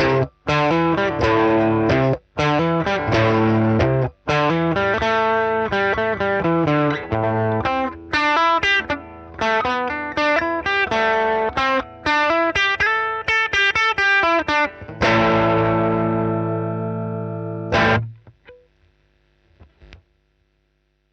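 Gibson Les Paul Tribute electric guitar played through a one-knob fuzz pedal built on the Colorsound Fuzz circuit, into an amp modeller set to a Fender Deluxe Reverb: a run of fuzz-distorted notes and chords with a few short breaks. About fifteen seconds in it ends on a held chord that rings for around three seconds, is cut off, and is followed by near silence.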